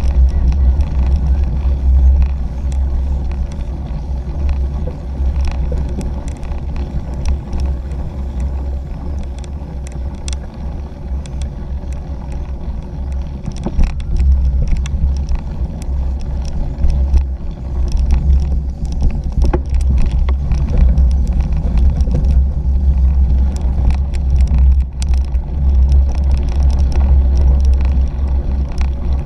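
Bike-mounted action camera riding a cyclocross bike over a bumpy dirt and grass course at about 10 mph: a steady low rumble of wind and tyre noise, with frequent sharp rattles and knocks as the bike jolts over the rough ground.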